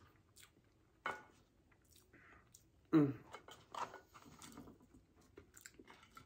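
Close-up chewing and wet mouth sounds of someone eating McDonald's French fries, with many short clicks and smacks and two louder bursts about a second and three seconds in.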